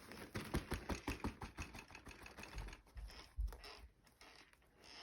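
Faint, irregular light clicks and taps from handling the animatronic prop, which is not yet running.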